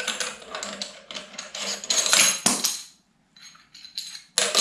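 Handling noise from the eyepiece adapters on the rear of a Celestron EdgeHD 11 telescope tube: a quick run of clinks and scrapes of metal and plastic fittings, loudest about two seconds in, with a short pause around three seconds before more clicking.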